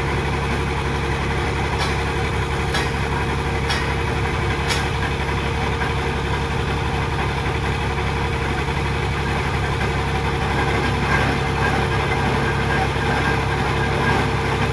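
Heavy diesel engine of piling machinery running steadily with a low, even hum. Four sharp clicks sound about a second apart near the start.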